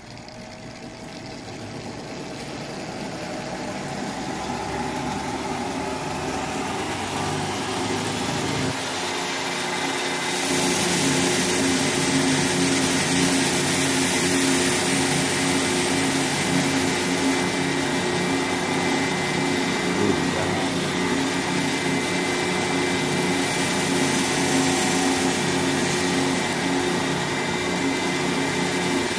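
Electric motor of a double-wheel knife grinder, run through a variable frequency drive, getting steadily louder over the first ten seconds or so. After that comes a steady hum with a high hiss as a pocket-knife blade is ground on the 4-inch wheel.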